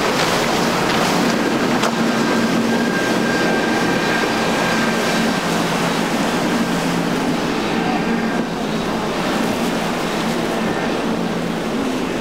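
Twin Mercury 350 outboard motors running at speed, a steady engine drone mixed with the rush of hull spray, with a thin high whine over it for a few seconds mid-way.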